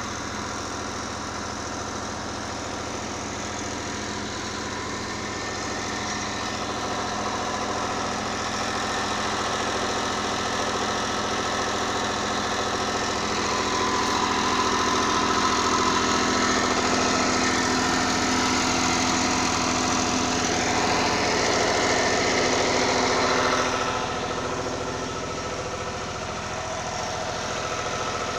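18 kVA diesel generator running at a steady speed. Its sound grows louder through the middle and drops back suddenly about three-quarters of the way through.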